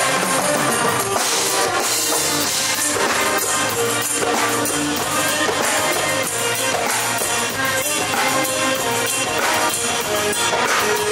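Live band music with drums keeping a steady beat under sustained melodic notes.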